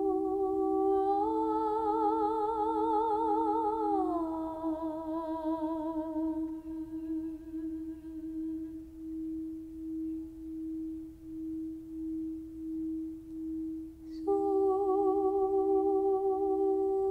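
Sound-healing music: a wordless voice hums with a wavering vibrato over a steady, pulsing singing-bowl tone. The voice steps up in pitch, then glides down and fades, leaving the bowl tone on its own. The voice comes back in near the end.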